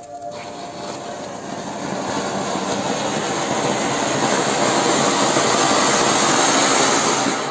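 Ground fountain firework (anar) spraying a column of sparks with a loud, steady rushing hiss that grows louder over the first few seconds as the fountain builds, then cuts off suddenly near the end.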